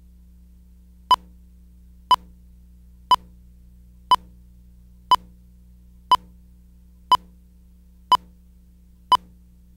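Countdown-leader beeps: a short, identical beep once a second, nine in all, over a faint low steady hum.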